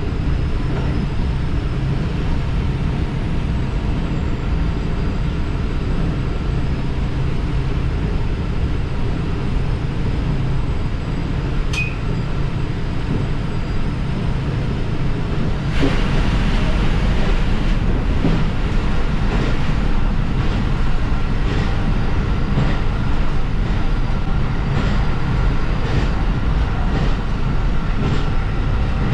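Diesel railcar running, a steady engine drone over the rumble of wheels on rails. About halfway through it gets louder and wheel clicks over the rail joints come in at a regular beat.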